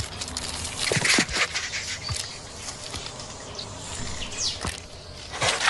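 Honey badger's claws scraping and scrabbling on tree bark as it climbs the trunk, in repeated rasping bursts that are heaviest about a second in and again near the end.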